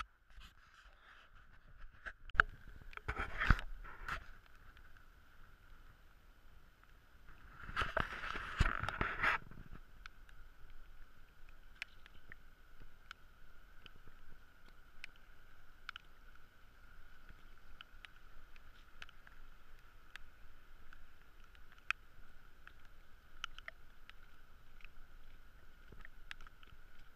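Raindrops ticking irregularly on a GoPro camera's housing over a steady hiss, with two louder rushes of noise about three and eight seconds in.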